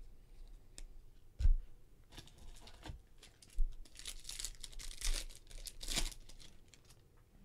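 A few knocks and clicks while a stack of trading cards is handled, the loudest a thump about a second and a half in. Then a foil-wrapped Bowman Chrome Jumbo card pack is torn open, its wrapper crinkling for about two seconds near the end.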